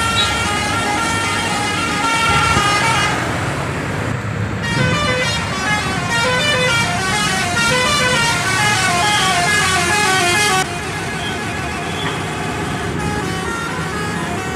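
Indonesian 'telolet basuri' multi-tone bus air horn playing quick melodic tunes in two runs, the first ending about three seconds in and the second starting around five seconds and cutting off suddenly at about ten and a half seconds, over a steady low rumble.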